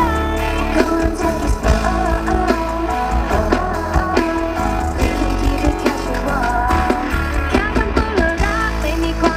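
Live pop-rock band playing, with electric guitar and drums, and a woman singing over it.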